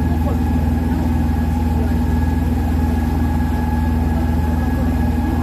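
An open passenger boat's engine running steadily underway, heard from on board: a continuous low hum with an even, rapid pulse.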